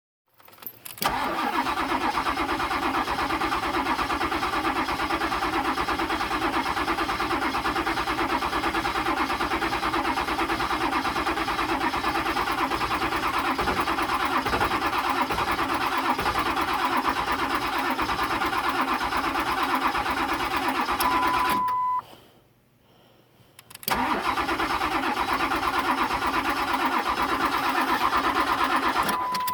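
Starter cranking a 1999 Ford 7.3 Power Stroke V8 diesel that has sat for six months and will not start. It cranks steadily for about twenty seconds without catching, stops for about two seconds, then cranks again. A steady beep sounds just before each stop.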